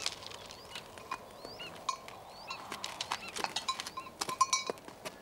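Goat bells clanking and ringing irregularly as goats move over rock, more busily in the second half, with a few short high chirps.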